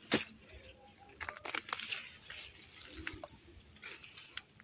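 Hand hoe chopping into garden soil while digging up taro: one sharp strike just after the start, then scattered crunching and crackling of earth, roots and leafy stems, with a dull thud about three seconds in.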